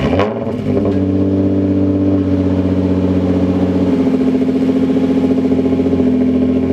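Infiniti G35 coupe's V6 engine idling steadily just after a cold start. The idle note shifts slightly about four seconds in as it settles.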